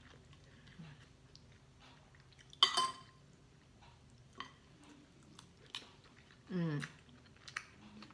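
Metal spoon and fork clinking and scraping on a ceramic plate while flaking milkfish. One sharp, ringing clink comes between two and three seconds in, followed by lighter taps, with quiet chewing in between and a brief hummed voice sound falling in pitch in the later part.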